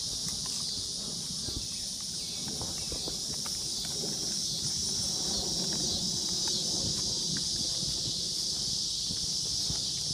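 A steady high insect chorus over the soft thuds and rustle of feet running across grass.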